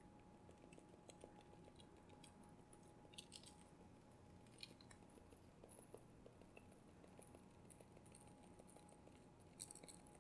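Near silence with faint, scattered small ticks of a hand-held mesh strainer being shaken and tapped to dust icing sugar over a tray of cookies, a few at a time and a small cluster near the end.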